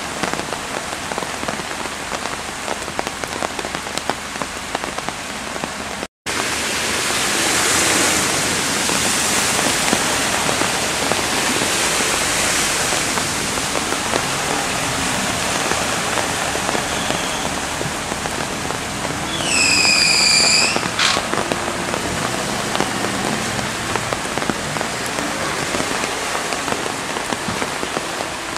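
Steady rain falling on a flooded street, with cars swishing through the standing water. About two-thirds of the way through, a short high-pitched tone lasts about a second.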